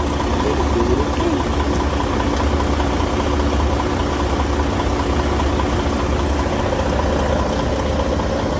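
Diesel engines of parked semi trucks idling, a steady low drone.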